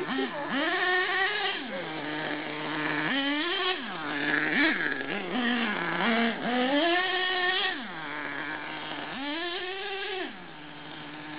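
HPI Savage XL nitro RC monster truck's small glow-fuel engine revving up and down. It rises in about five long surges and drops back to a steady idle between them.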